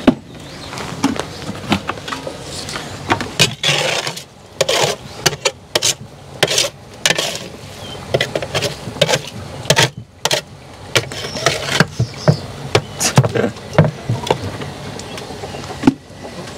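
Hand scraping and knocking in the plastic tub of a steam wax melter, working the slumgum (wax residue) on the mesh sieve at the bottom: a run of irregular sharp knocks and clicks with scraping between them.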